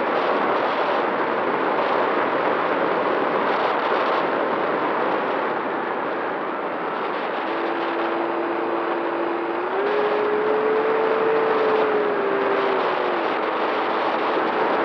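Airflow rushing over the onboard camera's microphone of a Volantex Firstar 1600 EX FPV plane in flight, with the hum of its 2836/1200KV brushless motor and 7x5 propeller. About halfway through, the motor tone comes up, rises in pitch, holds, and falls back again near the end as the throttle changes.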